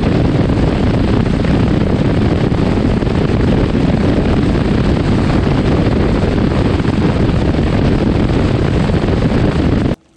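Bass boat running at speed over open water: a steady, loud rush of the outboard engine and wind over the microphone, cutting off abruptly near the end.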